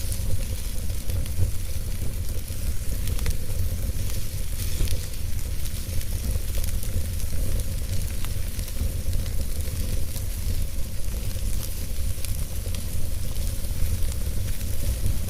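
Fire burning in a fireplace: a steady low rumble with scattered crackles and pops.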